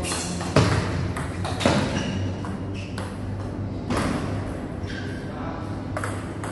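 Table tennis ball hit back and forth in a rally: sharp clicks of the ball off bats and table, about one a second, over a steady low hum.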